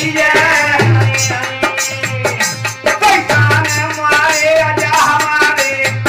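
Folk bhajan music: a hand drum keeps a steady beat under the jingling of a chimta, with a melody line running over it.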